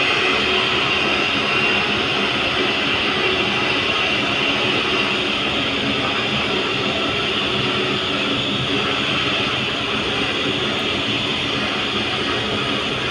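Steady mechanical running noise from a bascule lifting bridge's drive machinery as its leaves are raised.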